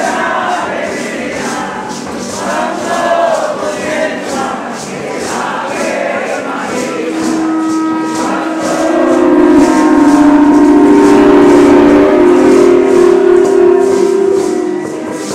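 A group of voices singing a ceremonial chant, with a rattle shaken in an even beat about twice a second. From about seven seconds in, the singers hold long notes at several pitches, and it grows louder.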